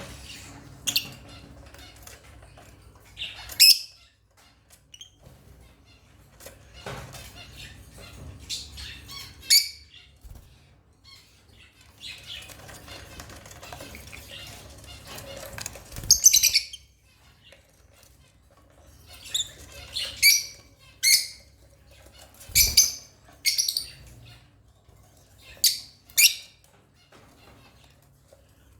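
African lovebirds giving sharp, high-pitched chirps and squawks in short scattered bursts, coming thickest in the last ten seconds.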